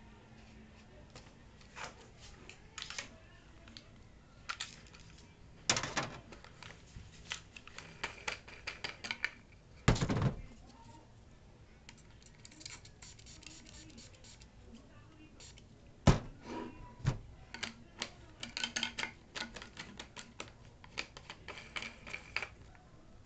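Irregular clicks, taps and knocks of hard plastic parts as a homemade PVC marble gun is handled and loaded, with a few louder knocks, the loudest about ten seconds in.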